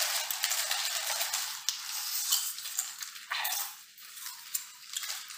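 Crinkling and crackling of small plastic Lay's chip packets being torn open and handled, an irregular run of sharp little crackles.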